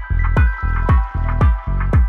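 Electronic background music: a kick drum whose pitch drops on every beat, about two beats a second, over a steady bass line and held synth tones.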